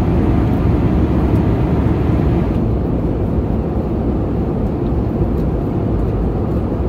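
Airbus A320 passenger cabin noise in flight: a steady, even rush of engines and airflow, strongest at the low end. The higher hiss drops away about two and a half seconds in.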